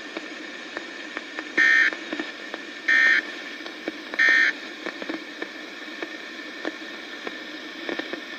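Three short bursts of SAME end-of-message data tones from a RadioShack NOAA weather radio, about a second and a quarter apart, marking the end of the broadcast weather alert. Steady radio static with faint clicks runs underneath.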